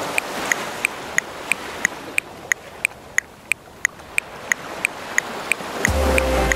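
Metronome clicking steadily at 180 beats per minute, three sharp clicks a second, over the steady wash of ocean surf. Music with a deep bass comes back in near the end.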